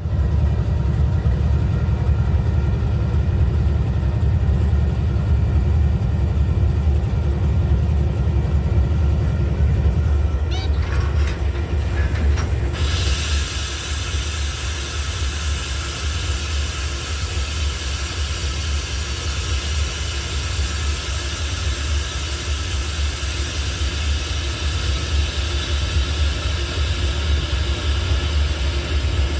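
Freight train rolling through a grade crossing: a steady, loud low rumble from the locomotives and cars. A steady high hiss joins in about 13 seconds in.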